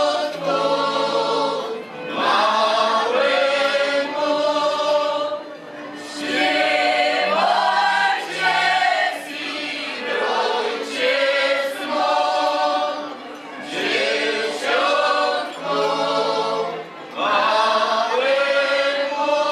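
Mixed group of men's and women's voices singing together without instruments: a Polish highlander (góral) folk group. The song comes in phrases of about three to four seconds, each followed by a short breath break.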